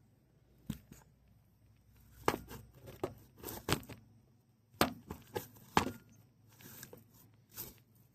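Irregular clicks, knocks and clatter of hand tools and metal parts being handled, with some rustling between them. The loudest knocks come around two to four seconds in and again near five to six seconds.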